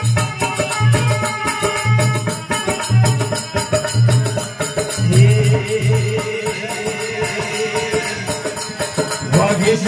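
Rajasthani folk bhajan music: a dholak drum beating a steady rhythm with jingling percussion over it. About halfway through, a voice comes in singing one long, wavering held line.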